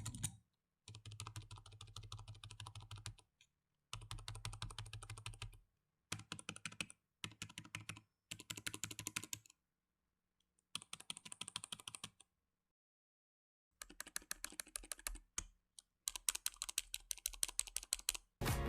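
Typing on a Logitech K120 membrane keyboard: rapid clattering key presses in bursts of a second or two, separated by short silent gaps.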